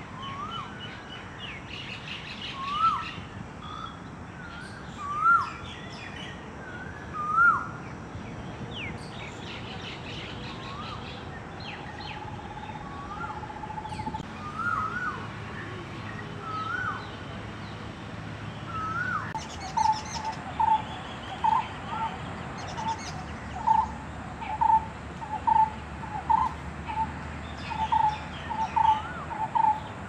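A myna calling: loud, rising whistled notes every two seconds or so, with other bird calls around. About two-thirds of the way through, a quick run of short repeated notes begins.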